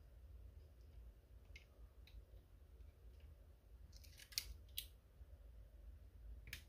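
Near silence over a low hum, broken by a few small sharp clicks, with a quick cluster about four seconds in. These are small tools and a thin wire being handled against a radio's circuit board during hand soldering.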